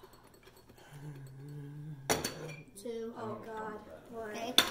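Upturned ceramic bowls knocking against their saucers as they are handled: two sharp clinks, about two and a half seconds apart.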